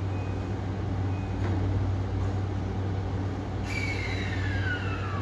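Electric commuter train at the station: a steady low rumble, then from about three and a half seconds in a whine that glides steadily down in pitch.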